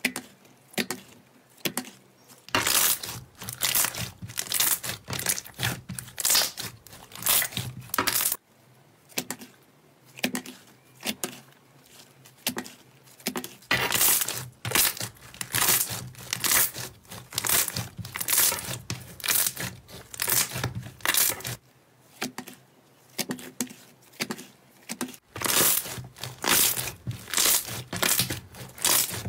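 Slime being squeezed and pressed by hand, a run of quick crackling squishes, in several short takes that change abruptly.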